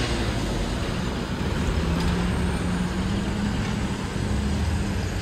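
Street traffic: a van's engine running as it drives past close by, its note rising a little partway through, over steady road noise from passing cars.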